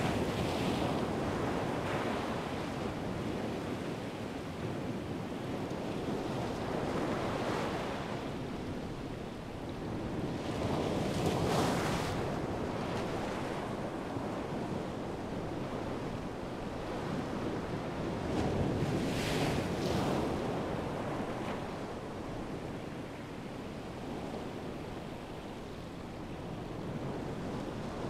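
Atlantic surf breaking and washing in steadily, with two louder surges of breaking waves about eleven and nineteen seconds in. Some wind on the microphone.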